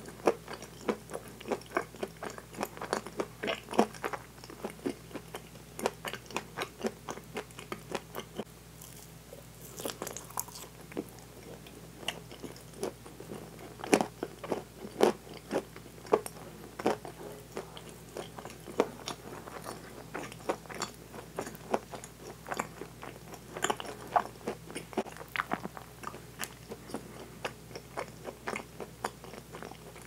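Close-miked chewing of soft, chewy bread: a dense, irregular run of mouth clicks and smacks, easing off briefly about nine seconds in.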